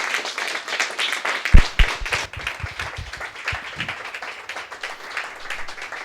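Audience applauding, a dense patter of clapping that slowly thins out near the end. Several low thumps come about one and a half to three and a half seconds in, the first of them the loudest sound.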